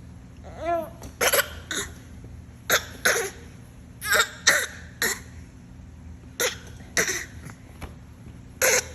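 A baby making short pretend coughs, about ten of them, several in quick pairs, after a brief little vocal sound at the start.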